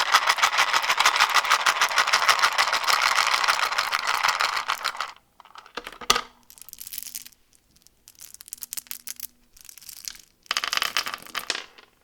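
Plastic candy wrapper being crinkled and torn open: a dense run of crackling for about five seconds, then three shorter bursts of crinkling with short pauses between them.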